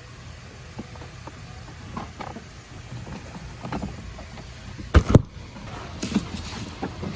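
Light clicks and knocks of parts being handled and fitted, with two sharp knocks in quick succession about five seconds in, over a steady low hum.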